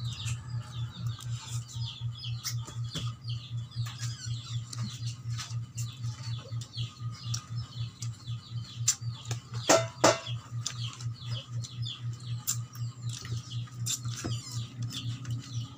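Many high chirps and peeps from birds go on throughout, over a low hum that pulses evenly several times a second. A few sharp clicks stand out, the loudest about ten seconds in.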